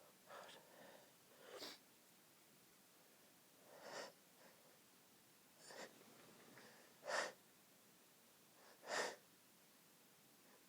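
A woman's stifled sneezes, held in to keep quiet: six short, hushed bursts of breath a second or two apart, the last two the loudest.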